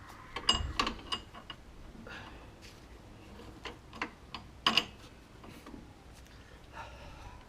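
Small steel parts clinking and tapping as they are handled: new wheel studs and wheel nuts knocking together and against the hub. There is a cluster of ringing metal clinks about half a second to a second in, and a couple of sharper knocks a little past the middle.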